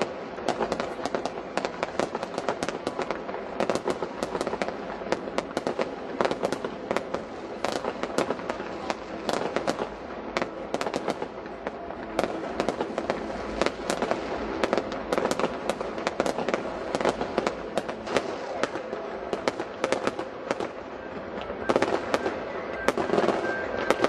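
Fireworks display: a dense, continuous run of bangs and crackles from bursting shells, several a second, over a steady background murmur.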